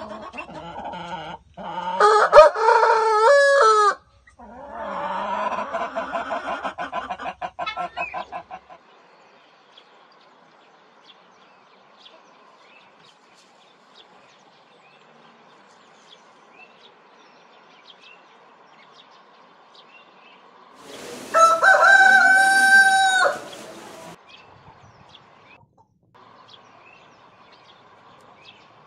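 Roosters crowing: a loud crow about two seconds in, followed at once by a longer, rougher pulsing call. A quiet stretch with faint bird chirps follows, then another crow about 21 seconds in that holds its pitch and drops at the end.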